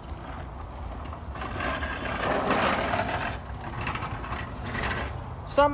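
Gasoline lawn mower engine running steadily, with a rushing swell of noise about two to three seconds in.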